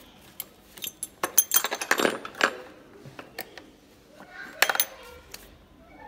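Metal hand tools, a spanner and a screwdriver bit from the bike's tool kit, clinking and clattering against each other and the motorcycle's metal parts as they are handled and set down. A dense run of sharp clinks with brief ringing comes about a second in, and a shorter cluster near the end.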